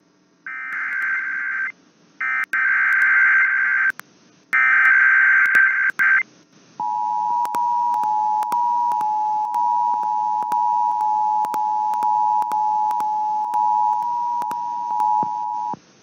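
Emergency Alert System required weekly test aired on FM radio: three short bursts of the SAME digital header tones, each about a second long, then the steady two-tone EAS attention signal (853 and 960 Hz) for about nine seconds, which cuts off shortly before the end.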